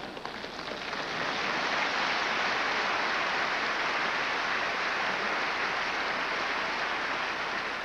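Large theatre audience applauding, swelling about a second in, holding steady, and fading near the end.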